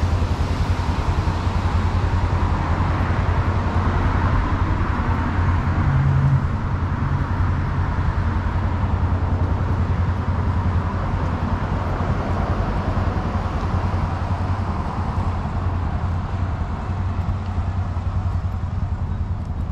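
Street traffic: cars passing along a town street, their tyre and engine noise swelling and fading over a steady low rumble.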